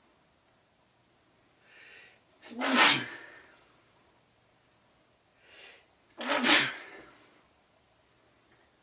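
A person sneezing twice, about three and a half seconds apart, each sneeze preceded by a short, audible in-breath.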